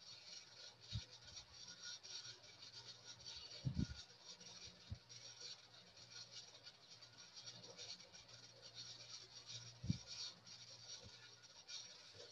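Faint room noise with a low steady hum and a light scratchy rustle, broken by a few soft low thumps, the strongest about four and ten seconds in.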